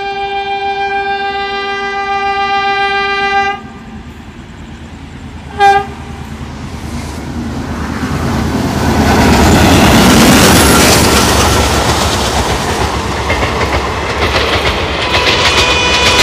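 Diesel locomotive horn: a long steady blast on approach, cut off after about three and a half seconds, then a short toot about two seconds later. The express train, hauled by twin WDM3A diesel locomotives, then passes at speed, with engine rumble and wheel clatter building to loudest about ten seconds in. Another horn starts near the end.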